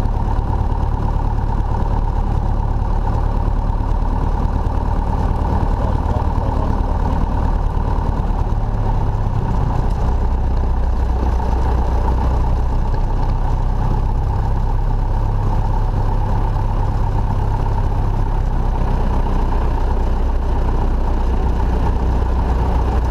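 Single-engine Cessna's piston engine and propeller running steadily while the plane taxis, heard from inside the cockpit as a low, even drone.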